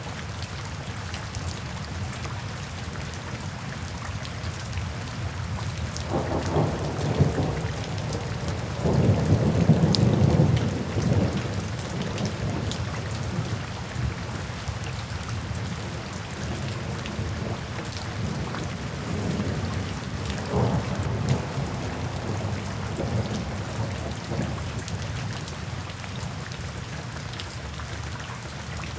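Steady rain drumming on a tin roof, with thunder rolling in low rumbles: one builds about six seconds in and peaks loudest around ten seconds, and a weaker rumble comes about twenty seconds in.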